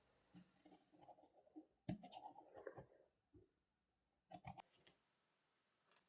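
Quiet clicks and light scraping of small metal watchmaking tools and watch parts being handled, with a sharper click about two seconds in and a short run of clicks a little past four seconds.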